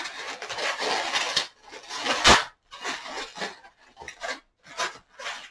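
Latex modelling balloon rubbing and scraping against itself and the hands as it is twisted into a pinch twist. There is one loud sharp squeak about two seconds in, then a series of short rubs.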